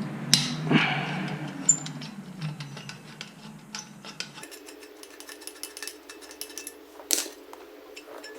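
Scattered light clinks, clicks and knocks of metal parts and tools being handled, with a steady low hum that cuts off suddenly about halfway through.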